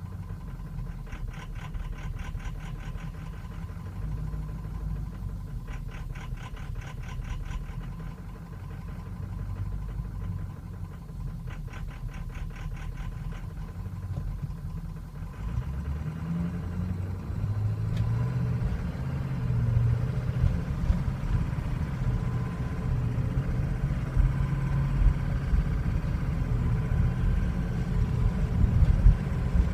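Ford 6.0L Power Stroke V8 turbodiesel running, with groups of rapid clicking in the first half. About halfway through it gets louder and its pitch wanders up and down, on an engine that the owner says idles rough and stumbles once warm.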